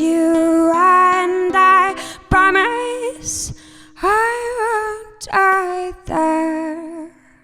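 A woman's voice singing wordless sustained phrases with vibrato and sliding pitch over a steady held accompaniment note, the last phrase fading out about seven seconds in as the song ends.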